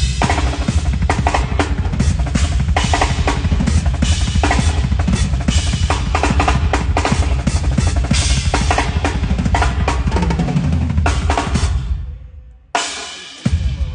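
Drum kit played loud and fast, with dense strokes and heavy kick drum. The playing breaks off about twelve seconds in, then comes one more loud hit near the end.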